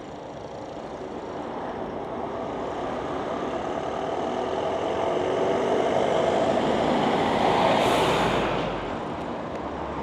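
A large road vehicle, such as a truck or bus, approaching and passing close by. Its engine note grows louder and rises slightly in pitch, there is a short hiss about eight seconds in, and then it fades.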